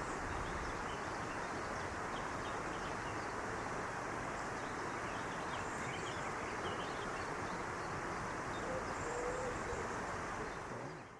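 Outdoor woodland ambience: a steady rushing background noise with faint, scattered bird chirps, fading out near the end.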